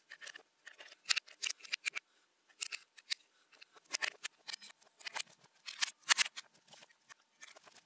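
Hand tools being lifted one by one out of a nailed pine box: a scatter of light clicks, clinks and wooden knocks as metal and wooden handles touch the box.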